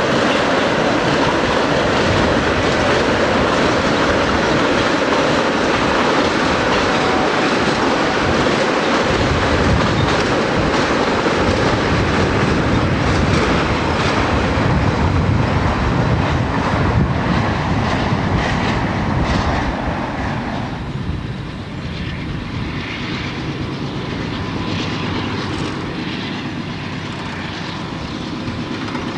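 Santa Fe intermodal freight train of trailers on flatcars rolling past: a steady loud rumble with the clatter of wheels over the rail joints. About two-thirds of the way through the sound drops to a quieter rumble with scattered clicks.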